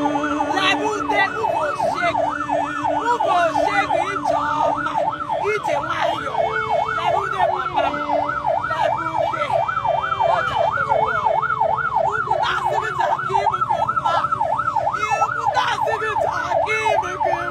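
Electronic vehicle siren on a fast yelp, its pitch rising and falling about four times a second without a break, with steady lower tones beneath.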